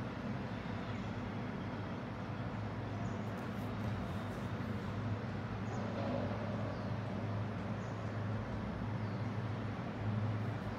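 Steady low background hum with a faint hiss, unchanging throughout.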